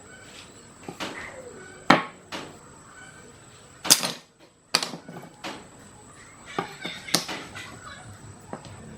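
A series of irregular sharp knocks and clicks, about half a dozen, the loudest about two and four seconds in, over a faint steady high whine.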